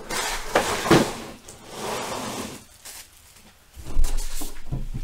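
Handling noise from a cardboard trading-card box on a table: rustling and scraping, then a few knocks about four seconds in as hands take hold of the box.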